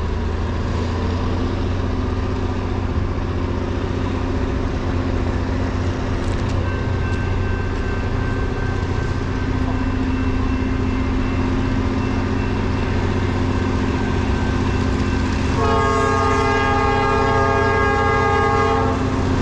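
Approaching locomotive: a steady low rumble growing slightly louder, then a loud chord from its air horn held for about three seconds near the end.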